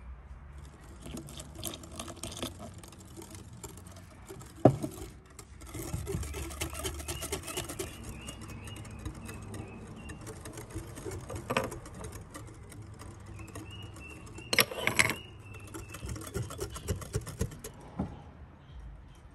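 Wire whisk beating a thin batter in a glass bowl: rapid clinking of the wires against the glass, with a few sharper knocks, the loudest about five seconds in and a cluster about fifteen seconds in.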